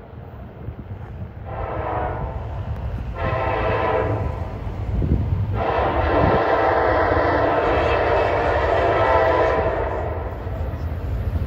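Freight locomotive's multi-note air horn sounding three blasts for the grade crossing: a short one, a longer one, then one held about five seconds. It gets louder as the train approaches, over the low rumble of the train.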